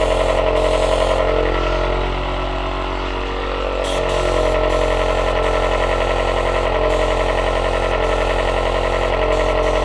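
Airbrush air compressor's electric motor running steadily, its hum sagging briefly about two to four seconds in, with a hiss of air above it that cuts in and out for short moments.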